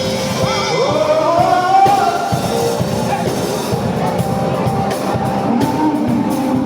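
A congregation praying aloud all at once, many voices overlapping, over loud church band music with drums.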